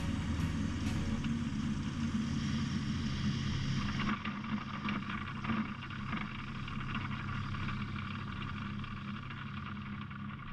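Rans S7 light aircraft's engine and propeller running steadily as it rolls along a paved runway, with wind and rolling noise; the sound drops a step about four seconds in.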